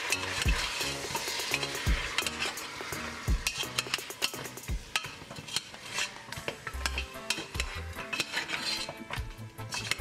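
Cow foot pieces sizzling in hot oil and brown sugar in a metal pressure cooker as they brown. A spoon stirs continuously, scraping and clicking against the pot again and again.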